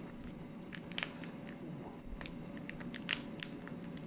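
Raw lobster tail shell crackling and clicking as hands pry the cut shell open and work it loose from the meat: scattered small cracks, about one or two a second.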